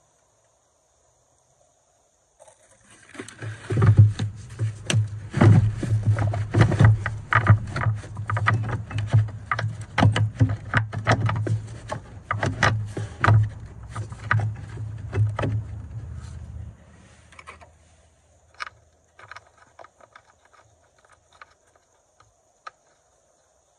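A car battery being handled and set into its metal-and-plastic tray: a dense run of irregular knocks, clunks and scrapes over a low rumble, thinning to a few faint clicks near the end.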